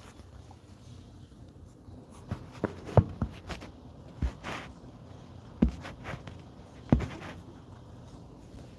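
A scatter of short, irregular knocks and clicks over quiet room tone, the loudest about three seconds in and the last near seven seconds, with a brief rustle between them.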